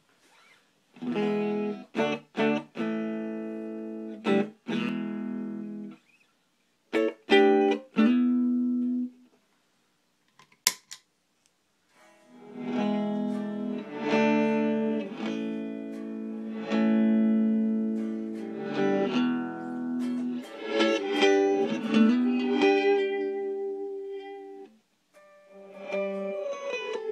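Eastwood Sidejack DLX electric guitar through an Orange Crush 15R amp on a clean setting, playing separate strummed chords with silent gaps for the first nine seconds. A sharp click comes about eleven seconds in. From then on the chords run through a Red Panda reverb prototype in reverse mode: each one swells in and the chords blur into one another.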